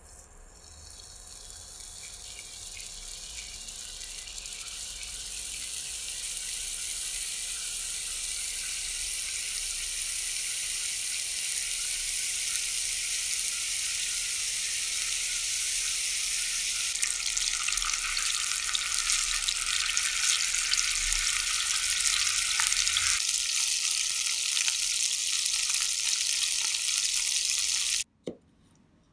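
Beef mince logs sizzling in hot vegetable oil in a frying pan, a steady crackling hiss that builds over the first several seconds as the meat goes in, then stops abruptly near the end. It is followed by a single knock of a knife on a wooden cutting board.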